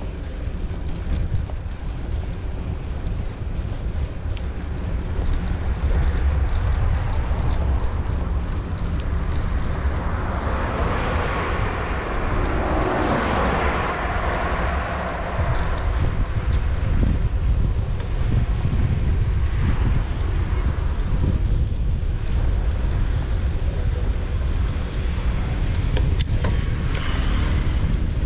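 Wind buffeting the microphone of a camera on the move, a steady low rumble. About halfway through, a car overtakes close by; the noise of its passing swells and then fades.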